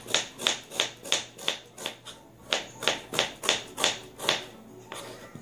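Kitchen knife slicing a red onion on a plastic cutting board: sharp, regular taps about three a second as the blade hits the board. There is a short break about two seconds in, and the slicing stops near the end.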